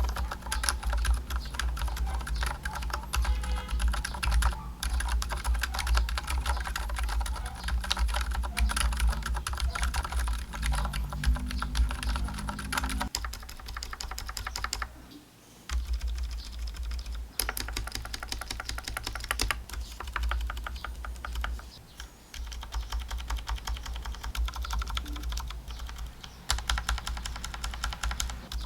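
Fast, continuous typing on a mechanical keyboard fitted with lubed and filmed ZealPC Zilent V2 62g silent tactile switches. The keystrokes pause briefly about halfway through and again near three-quarters of the way.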